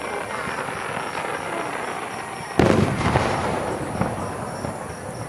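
Fireworks display: a steady crackle of bursting shells, with one loud boom a little past halfway through and smaller bangs after it.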